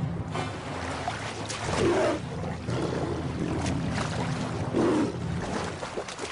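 Water splashing and churning as lions swim and thrash across a river while a crocodile attacks, with louder surges about two and five seconds in. A low, sustained musical drone runs underneath.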